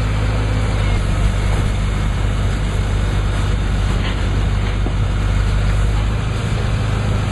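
Truck engine running steadily at a constant speed, a low even drone, powering a truck-mounted tree spade.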